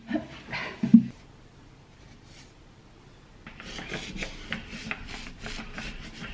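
A couple of sharp knocks in the first second, then, from about three and a half seconds in, a run of short scratchy rubbing strokes as a paint roller is handled.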